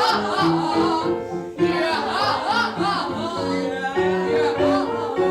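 Singing over an instrumental accompaniment, with a voice sliding up and down in repeated wavering arcs over steady held notes.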